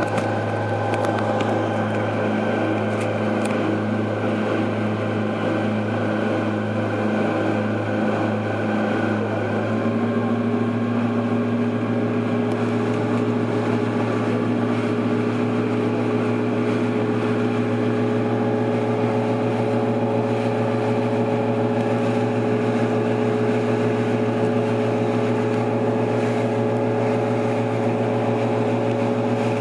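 Motorboat engine running steadily under way, a constant low drone that shifts to a slightly higher pitch about ten seconds in.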